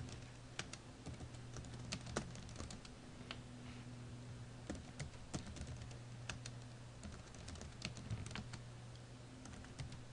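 Computer keyboard being typed on, irregular clusters of key clicks with short pauses between, over a low steady hum.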